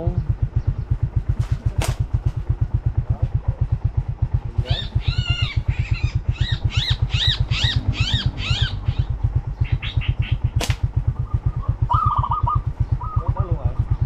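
A small engine running steadily with a rapid, even low thumping. Midway a bird gives a quick run of about eight repeated chirps, and there are a few sharp clicks, two near the start and one later.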